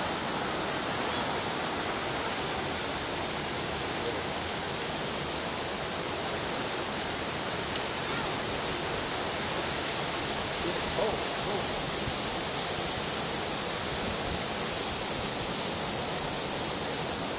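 River water rushing over rock ledges and small cascades, a steady, even rush.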